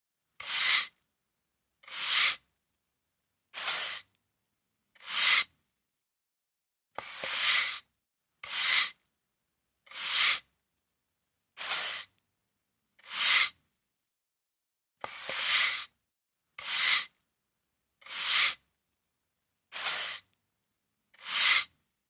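Broom sweeping: a series of short, hissy swishes of bristles brushed across a floor, one stroke about every second and a half, with silence between strokes.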